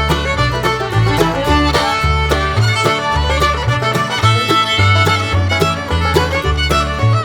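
Upbeat bluegrass-style background music with fiddle over a steady beat and a walking bass.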